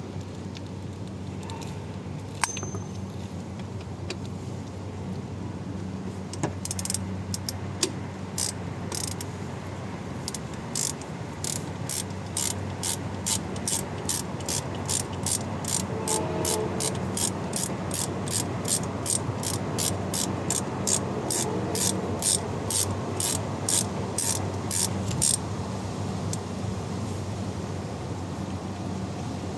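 Hand ratchet wrench clicking in a steady rhythm, about two clicks a second, starting about six seconds in and stopping a few seconds before the end. A low steady hum runs underneath.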